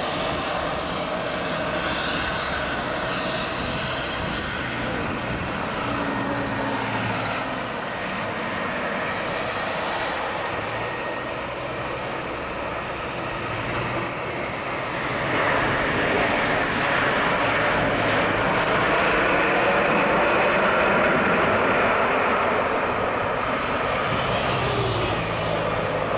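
Boeing 787-9 BBJ airliner's jet engines on landing: steady jet noise on short final. The noise grows louder about halfway through, once the plane is rolling out on the runway.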